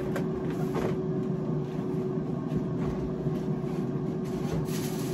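Air fryer running: a steady fan hum with one constant tone, with a couple of faint light clatters about a second in and near the end.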